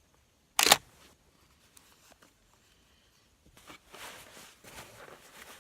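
A single shotgun shot, a 3-inch lead BB load, a short sharp blast about half a second in, followed a few seconds later by faint rustling.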